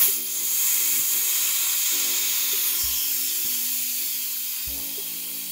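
Compressed air hissing out of an FX Maverick PCP air rifle as its air bottle is unscrewed to degas the gun. The hiss starts suddenly and slowly fades as the pressure bleeds off.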